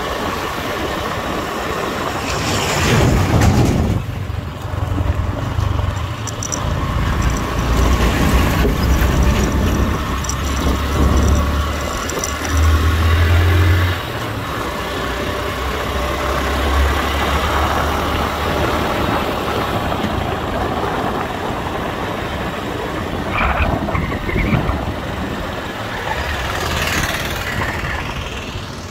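A motor vehicle on the move along a highway: steady engine and road noise with a deep rumble, strongest in the first half.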